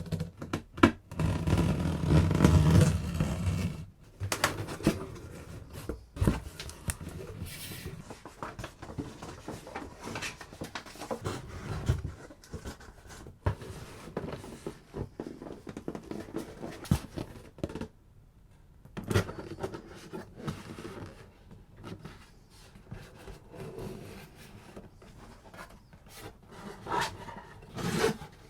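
Cardboard camera box and its packaging being handled and opened by hand: scraping and rubbing, with scattered clicks and taps. The loudest handling comes in the first few seconds.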